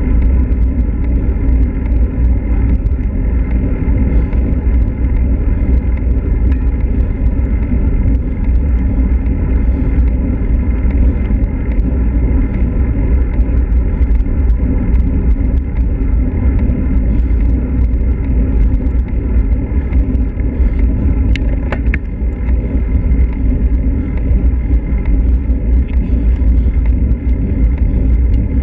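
Wind buffeting the microphone of a handlebar-mounted action camera on a road bike moving at speed, a loud, steady, low rumble with the hiss of the tyres on asphalt.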